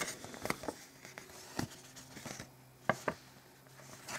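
Pages of a paper instruction booklet being handled and turned close to the microphone: soft paper rustling with a few sharp ticks and taps, the loudest about three seconds in.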